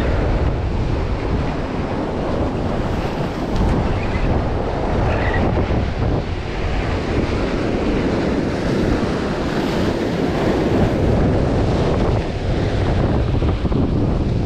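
Surf breaking and foaming against the boulders of a rock jetty, a loud, steady wash, with wind buffeting the microphone.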